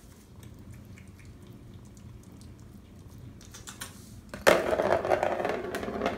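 Kittens crunching dry kibble from a bowl: faint, scattered small clicks. About four and a half seconds in, a loud, continuous rolling rattle starts suddenly: a light-up ball running around the plastic track of a circular cat scratcher toy.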